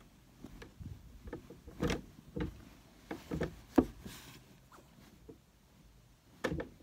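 Bedding being handled on a bed: a comforter pulled and spread out, with fabric rustling and irregular soft thumps and knocks against the mattress. The sharpest knock comes a little before four seconds in, followed by a short swish of cloth.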